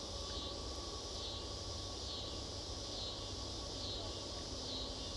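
High, steady chorus of insects that swells and fades in a regular rhythm, over a low rumble.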